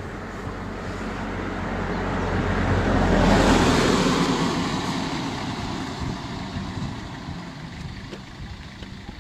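A motor vehicle passing close by, its engine and tyre noise building to a peak about three and a half seconds in, then slowly fading.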